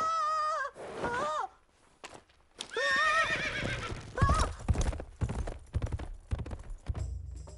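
A horse whinnying several times, then galloping, with fast hoofbeats from about four seconds in.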